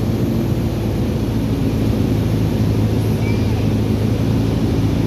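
Cessna 172's piston engine and propeller droning steadily in cruise, heard from inside the cabin.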